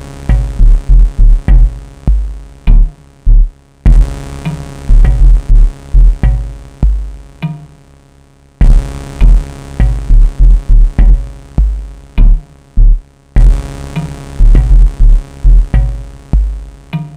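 Instrumental hip hop beat: drum machine with heavy bass-drum kicks and synth lines, the loop cutting out and restarting about every five seconds, with no vocals yet.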